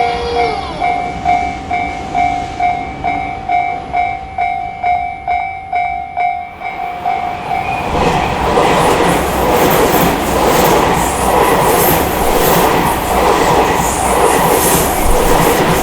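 Japanese railway crossing warning bell ringing in a steady pulsed 'kan-kan' about twice a second. About eight seconds in, a train passes over the crossing, its rumble and wheel clatter on the rails drowning out the bell.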